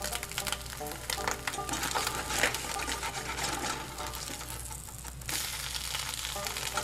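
Meat frying in hot oil: a steady sizzle with dense crackling.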